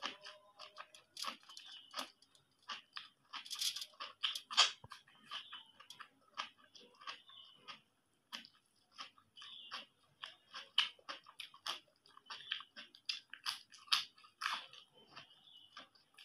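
Close-miked eating: chewing and crunching of rice, egg curry and papad eaten by hand, with many short, sharp mouth clicks and smacks at an uneven pace.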